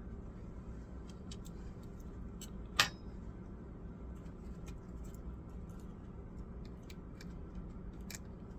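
Small scattered clicks and taps from laptop parts being handled during a motherboard swap, with one sharp click about three seconds in, over a steady low hum.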